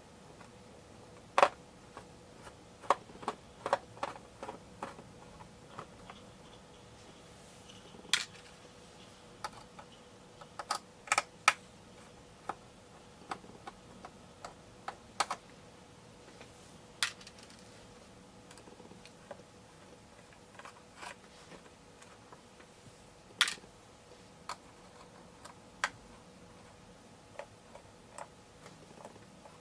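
Irregular light clicks and taps of a small screwdriver and tiny screws against a laptop's aluminium bottom case, a few sharper knocks among them, as the case screws are worked out.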